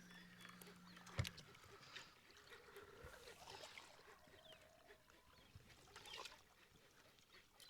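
Near silence, with a single faint knock about a second in and a few soft ticks.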